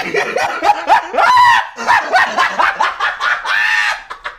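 A quick run of loud, high-pitched dog-like barks and yelps, with two longer drawn-out cries among them.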